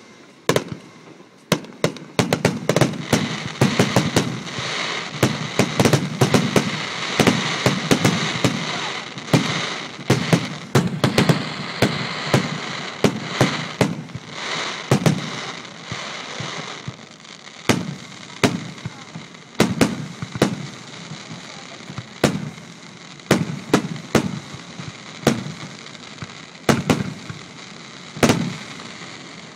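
Aerial firework shells bursting, bang after bang. The bangs come in a dense barrage over a continuous crackle through the first half, then thin out to single bangs a second or two apart.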